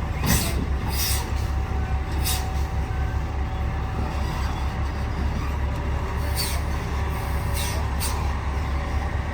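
Tractor-trailer truck running: a steady low rumble, with short hissing bursts about six times.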